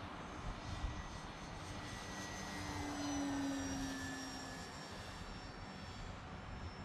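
Multiplex Acromaster Pro electric RC plane flying past, its motor and propeller giving a thin whine that swells to its loudest about three seconds in and dips slightly in pitch as it goes by.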